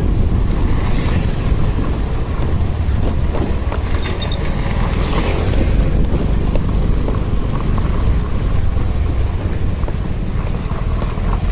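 Wind buffeting the microphone of a phone riding along on a moving motorcycle, a steady low rumble with the bike's running and road noise mixed in.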